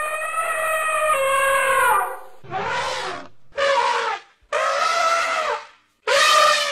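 African elephants trumpeting: a string of about five loud, brassy calls, each a second or two long, several falling in pitch at the end, with short breaks between them.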